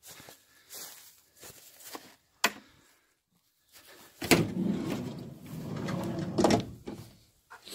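A vehicle door being opened by hand: a sharp click, then a loud rumble of about two seconds with a knock at its start and another at its end.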